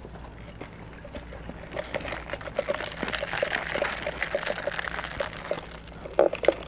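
Soda sucked up through a straw from a paper cup: a slurping hiss of liquid with small clicks, starting about two seconds in, followed by a few louder gulping swallows near the end.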